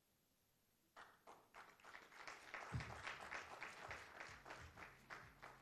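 A quick, even run of sharp clicks, about four a second, starting about a second in, building up and then fading near the end.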